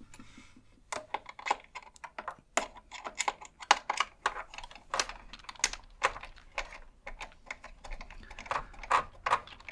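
Rapid, irregular clicks and taps of small metal and plastic parts being handled while a radio is taken apart: a screw and screwdriver knocking against the plastic case and circuit boards.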